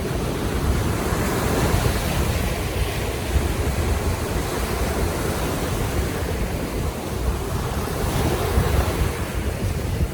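Baltic Sea waves washing on the shore in a steady rush that swells and eases, with wind rumbling on the microphone.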